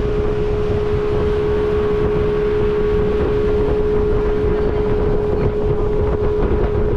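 Small motorboat under way: its engine runs steadily with a constant hum, mixed with heavy wind buffeting the microphone and water rushing past the hull.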